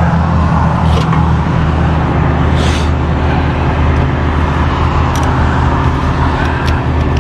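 Medium-duty wrecker's engine idling steadily, with a short hiss about two and a half seconds in and a few light clicks.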